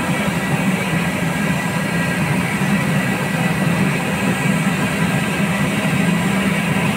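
Gulab jamun deep-frying in a wide karahi of hot ghee: a steady sizzle with a low rumble underneath.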